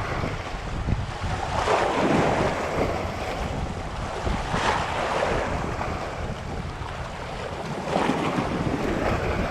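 Wind buffeting the microphone over moving water, with a few stronger gusts.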